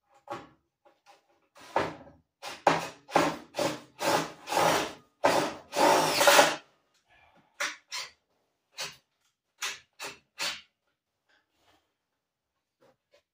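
Power drill run in a series of short trigger bursts, about a dozen, the longer ones in the first half and quick short ones after, then stopping.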